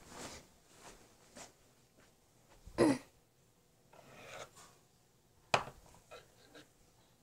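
Handling noise from a handheld camera being moved around: scattered rustles and light knocks, with a loud thump about three seconds in and a sharp click about five and a half seconds in.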